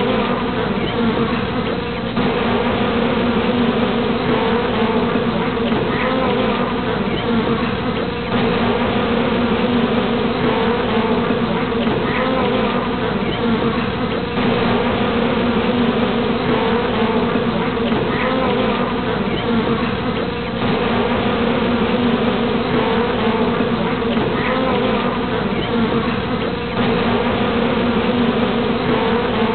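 A honeybee colony buzzing: a dense, steady hum of many bees, briefly dipping about every six seconds.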